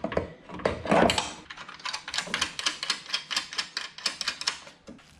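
Hand work fitting a coilover into a steering knuckle: a rustle about a second in, then a quick run of light, evenly spaced clicks, about five or six a second, for two to three seconds.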